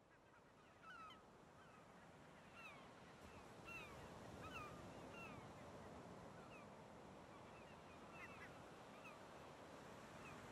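Seagulls calling, many short falling cries, over a steady rush of sea surf, faint and swelling up slowly from silence.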